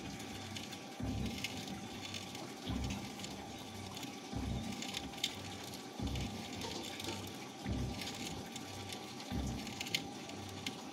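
Vapour blasting cabinet at work: a steady hiss of compressed air and water-abrasive slurry spraying onto aluminium engine parts, with a low pulse about every second and a half.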